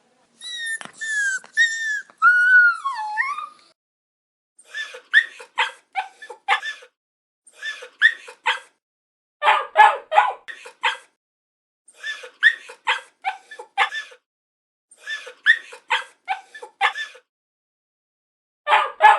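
Puppy crying: high-pitched whines that slide down in pitch for the first few seconds, then repeated groups of short whimpering yips, each group a quick run of several cries with silence between groups.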